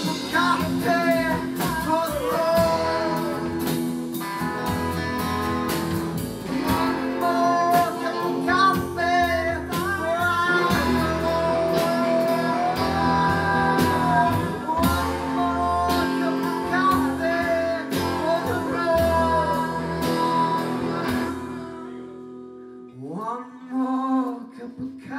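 Live blues band: strummed acoustic guitar, a low bass line and steady percussion under a sung lead with long, wavering held notes. About 21 seconds in the band cuts off and only a quieter voice carries on.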